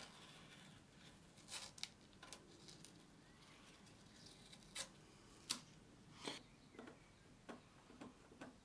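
Quiet, scattered small rustles and taps of blue masking tape being pressed onto and worked around a wooden guitar headstock with a pointed tool, then a pencil marking on it.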